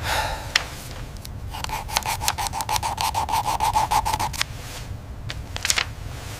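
Pencil scratching on paper in quick repeated strokes, about five a second, for a few seconds in the middle, over a low steady rumble.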